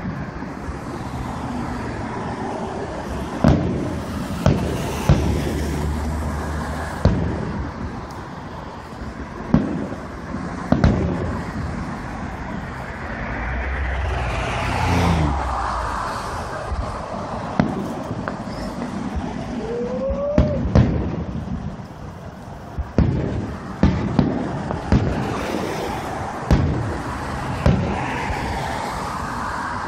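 Aerial fireworks shells bursting in the distance: about a dozen sharp booms at irregular intervals. Car engines run steadily underneath. A short rising whistle sounds about two-thirds of the way through.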